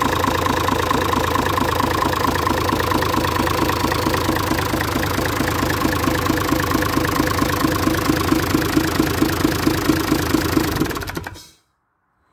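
Perkins 6.372 six-cylinder diesel engine running steadily on a test run, out of its machine on a pallet. The sound cuts off about eleven seconds in.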